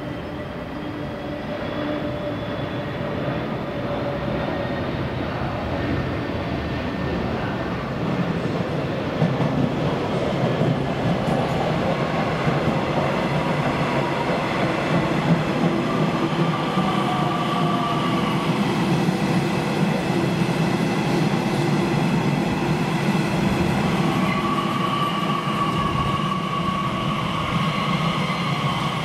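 Electric train running on rails, growing louder over the first ten seconds and then holding steady. Thin high wheel-squeal tones come and go in the second half.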